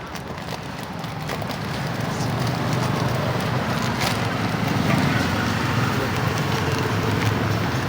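Steady background bustle with indistinct voices and scattered light clicks.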